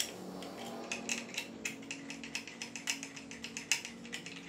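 Hand ratchet clicking in quick irregular runs as the mounting screws of a fish finder mount are tightened.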